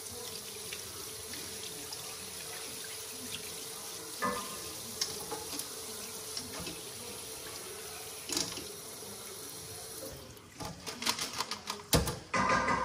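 Kitchen faucet running steadily onto crab legs in a metal colander as they are rinsed. The water stops about ten seconds in, and a run of sharp knocks and clatters follows as the colander is handled in the sink.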